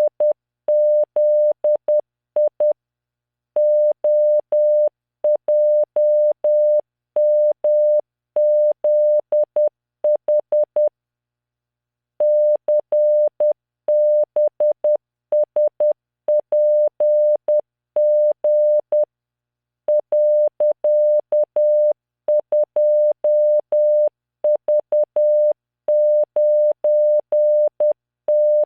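Computer-generated Morse code at 10 words per minute: a single 600 Hz tone keyed on and off in short dots and longer dashes. It sends random five-character practice groups, with slightly longer pauses between the groups.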